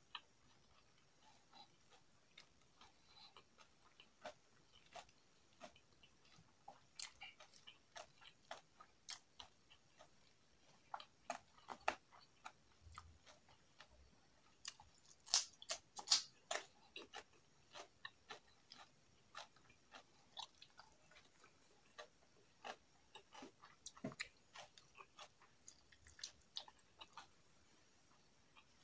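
Close-up eating sounds: crispy fried chicken skin crunching and being chewed, as a scatter of short, sharp crackles, thickest about halfway through.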